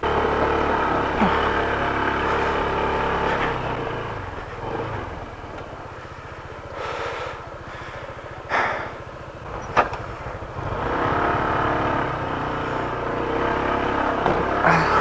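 Adventure scooter's engine running under load while climbing a rocky gravel track. The revs drop for several seconds in the middle and pick up again about two thirds of the way through, with two sharp knocks around the middle.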